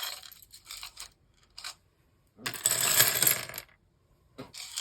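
Loose plastic LEGO pieces clattering: a few scattered clicks, then about halfway a loud second-long rattle of many pieces knocking together, and a few more clicks near the end.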